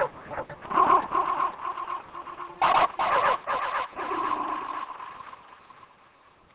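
Jack Russell terrier yipping and whining in several short bursts, with one loud yip about two and a half seconds in, then trailing off near the end.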